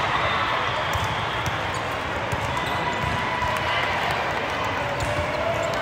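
Busy sports-hall din during a volleyball match: a steady murmur of many voices, with scattered thuds of balls hitting the floor and being struck.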